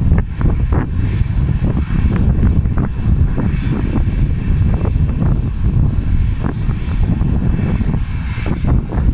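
Aircraft engines running: a steady, loud low rumble.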